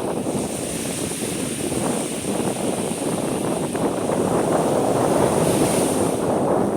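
A steady, gusting rushing noise: wind buffeting the microphone outdoors.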